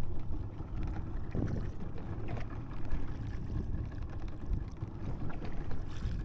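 Steady low noise of a small fishing boat on the water, with wind on the microphone and a few faint knocks.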